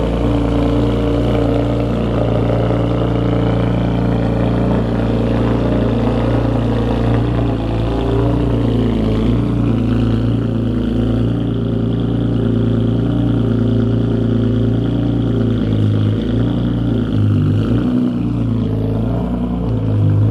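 BMW E46 M3's S54 straight-six engine running through freshly fitted long-tube headers and a Tomei single-exit exhaust: a steady, loud drone whose pitch shifts slightly now and then.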